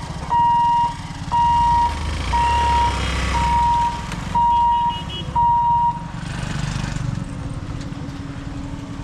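Electronic warning beeper at a railway level crossing: a single high beep about once a second, six times, each about half a second long, then it stops. A low rumble runs underneath.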